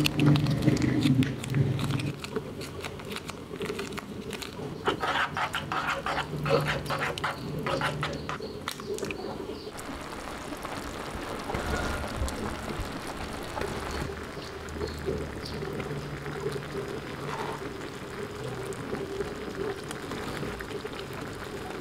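Noodles, rice cakes and sauce simmering and bubbling in a frying pan, with a run of quick crackling pops through the middle. A low pitched tone comes and goes, loudest at the start.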